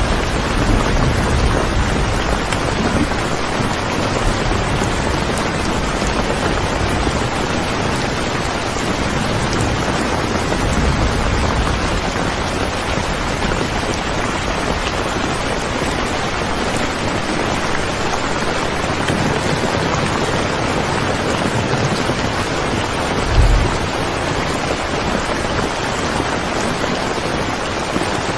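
Steady heavy rain falling, with low rumbles and one brief low thump about 23 seconds in.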